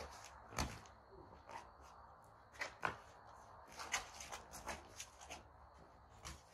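Boxing sparring: about ten short, sharp thuds and scuffs at irregular intervals, from gloved punches landing and sneakers shuffling on concrete.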